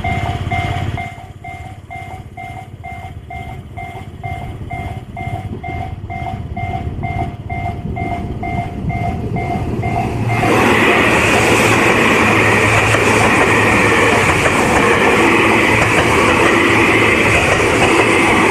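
Level-crossing warning bell ringing about twice a second while a train approaches and grows louder. About ten seconds in, a stainless-steel electric commuter train passes close by, and its wheels and running noise drown out the bell.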